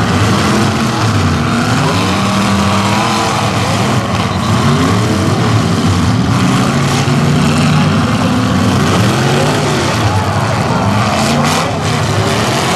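Several demolition derby car engines running loud and revving up and down at once. A few sharp crash impacts come about eleven seconds in.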